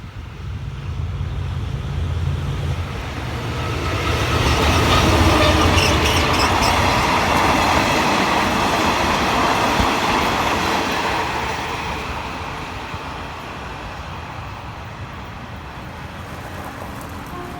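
A passenger train hauled by a GE diesel-electric locomotive passes by. The low hum of the locomotive's engine comes first, then the rumble of the wheels and cars builds to a peak with clicks over rail joints about five to seven seconds in, and fades away.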